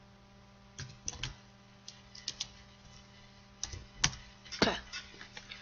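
Typing on a computer keyboard: about ten short, separate key clicks spread unevenly through the seconds, over a faint steady hum.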